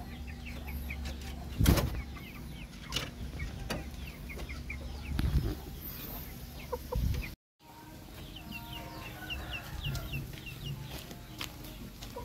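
Backyard chickens clucking, with many short, high, falling peeps repeating a few times a second. A few dull bumps are heard over a low rumble, and the sound cuts out for a moment just past halfway.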